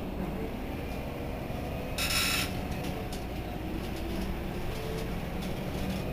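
Irisbus Citelis 12 city bus standing with its engine idling: a steady low rumble. About two seconds in, a short high buzz sounds once.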